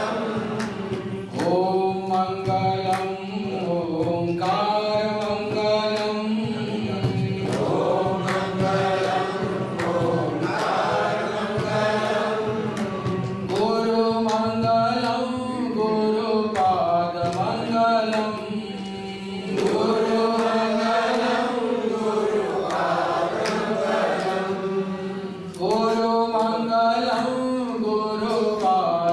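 A man chanting a devotional mantra into a microphone, in long sung phrases of a few seconds each with held and sliding notes, over a steady low drone that continues between the phrases.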